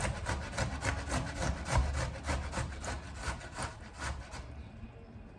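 A tomato being grated by hand: quick rasping strokes across a grater, about four a second, that stop about four and a half seconds in.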